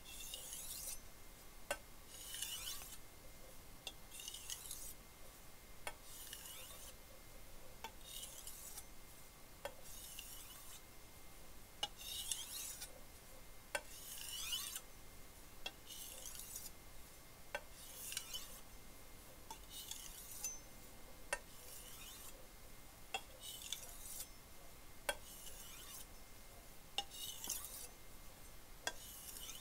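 Wusthof chef's knife blade stroked back and forth across a fine 5000-grit Bob Kramer by Zwilling whetstone at the finishing stage of sharpening. It makes a quiet, high scrape at each stroke, about one a second, with light clicks between.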